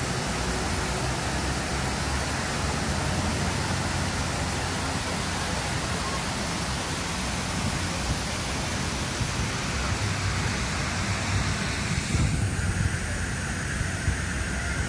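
Steady rushing hiss of a fountain's water and fog-misting jets spraying around the base of a large globe sculpture. About twelve seconds in the hiss thins out and grows duller.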